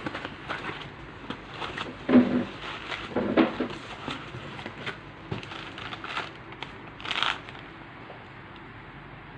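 Packaging being handled while a replacement tablet touchscreen is unboxed: irregular rustling and crinkling with small clicks, heaviest in the first half, with one more burst near the end before it quiets.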